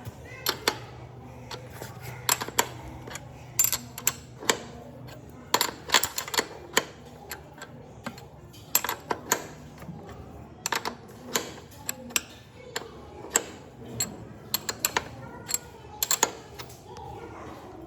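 Irregular sharp metallic clinks and knocks, several a second at times, like metal tools being handled and set down, over a steady low hum that stops about ten seconds in.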